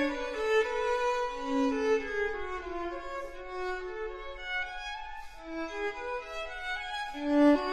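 Background music: a violin playing a melody of sustained notes that glide from one pitch to the next.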